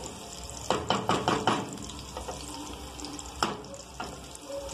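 Chopped onion sizzling in hot oil in an aluminium pan, with a quick run of wooden-spoon scrapes and knocks against the pan about a second in and one more knock a little past the middle.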